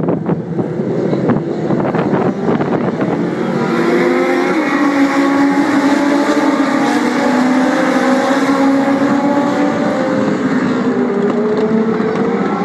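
A pack of Legends race cars, powered by motorcycle engines, passes at full throttle. Many high-revving engine notes overlap, and they swell and slide in pitch as the cars go by.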